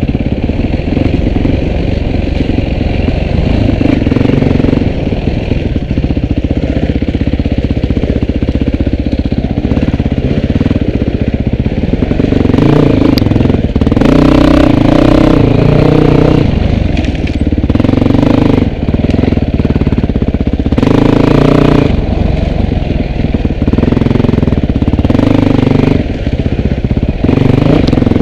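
Dirt bike engine running as it is ridden off-road, revs rising and falling with the throttle. Harder, louder pulls come about halfway through and again a few seconds later.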